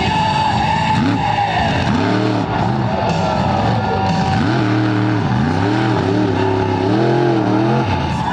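Monster truck engine revving repeatedly, its pitch climbing and falling about once a second as the throttle is blipped.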